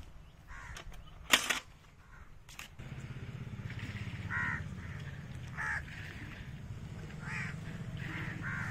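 A sharp knock, then several short animal calls, caw-like, over a steady low hum.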